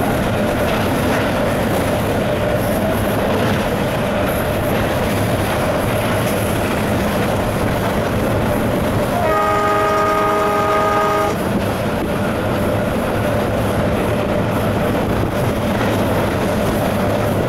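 Inside the cab of an Alco WDM3D diesel locomotive running at speed: steady engine and running noise, with the locomotive's horn sounded once about nine seconds in, several notes at once, held for about two seconds.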